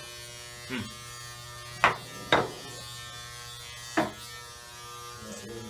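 Electric hair clippers running with a steady buzz. Four sharp knocks or taps come over it, the two loudest about two seconds in.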